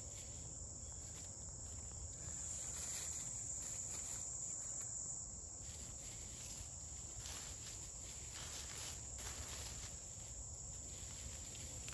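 Steady high-pitched insect chorus, with a few faint rustles of hens scratching and pecking in dry leaf litter.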